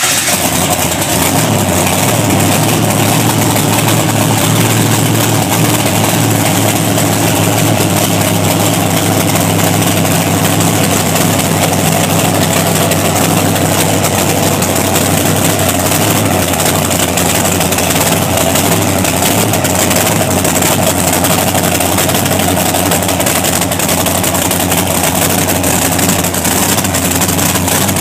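Fuel-injected race V8 engine running at a loud, steady idle after start-up.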